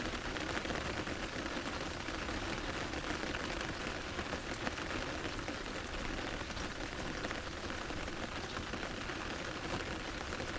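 Medium rain pattering steadily on an umbrella's fabric canopy, a dense even patter of drops.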